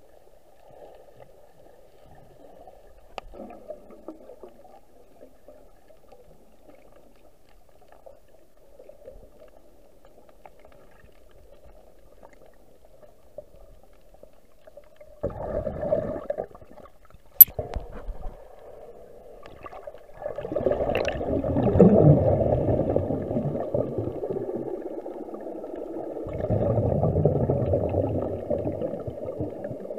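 Muffled water noise picked up by a camera held underwater: faint at first, then gurgling and rushing from about fifteen seconds in, a single sharp click a couple of seconds later, and louder churning through the last ten seconds.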